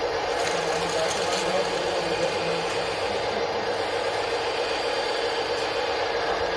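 RC scale skid steer loader running steadily, a continuous mechanical whir with a constant hum.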